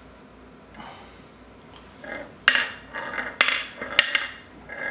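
Crankshaft of a Polaris XLT 600 two-stroke triple being turned by hand in its open crankcase, with sharp metallic clinks as the loose connecting rods swing and knock against the aluminium case. The clinks start about halfway through and come several times a second.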